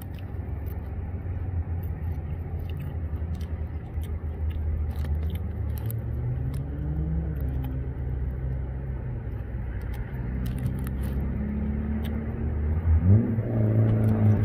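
Low, steady rumble of motor vehicle engines, with the pitch rising in places as a vehicle accelerates, and faint clicks of chewing. Near the end a louder hum rises and then holds steady.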